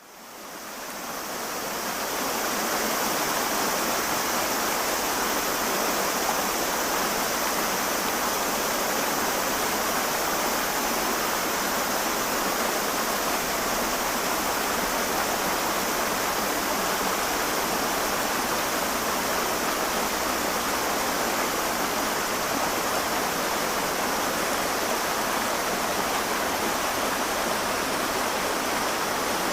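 Flowing river water, a steady rushing that fades in over the first two seconds and then holds even.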